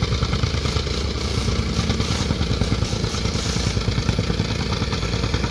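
Soil compaction machines running: a tamping rammer and a small plate compactor, their petrol engines chugging with a fast, steady pounding clatter as they compact backfill soil.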